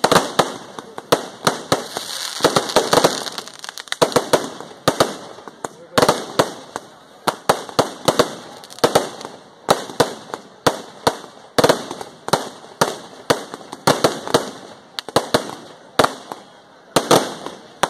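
Firecrackers bursting in a rapid, irregular barrage: several sharp bangs a second with crackling between them.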